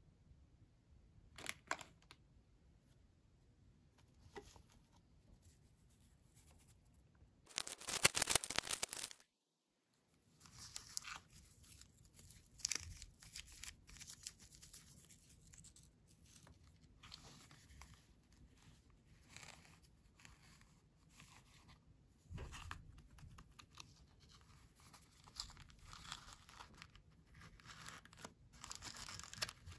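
Hands handling and opening small cardboard toy boxes and their plastic wrappers: a loud tearing rip about eight seconds in, then scattered crinkling and rustling of cardboard and plastic film.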